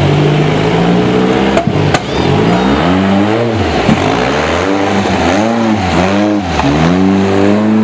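Rock crawler buggy's engine revving in repeated throttle bursts as it climbs over boulders, the pitch swinging up and down about six times in a row, with a sharp knock about two seconds in.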